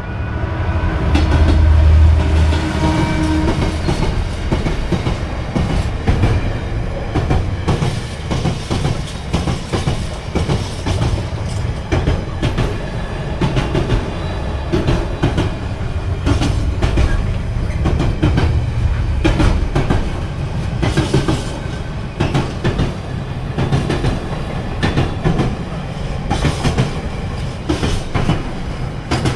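Container freight train passing over a level crossing: the locomotive's deep engine rumble is loudest about two seconds in, then the loaded container wagons rumble past with a steady clickety-clack of wheels over the rail joints.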